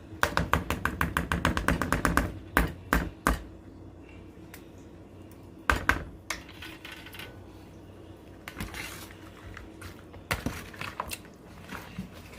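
A utensil clicking fast against a bowl as raw egg with shrimp and onions is mixed, about eight strikes a second for two seconds, then a few scattered knocks.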